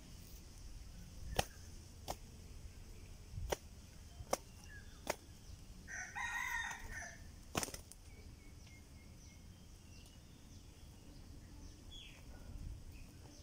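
Two spotted doves fighting on bare ground, striking with their wings: about six sharp, separate slaps over the first eight seconds. A short call from another bird sounds about six seconds in.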